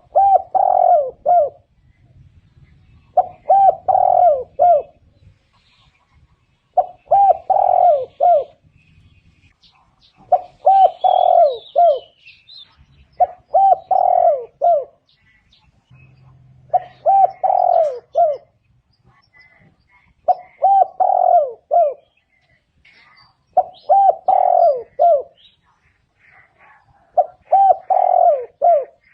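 Spotted dove cooing, the repeated call used to lure other doves. Nine phrases of three or four coos each, repeated about every three and a half seconds, with faint chirps of other small birds in between.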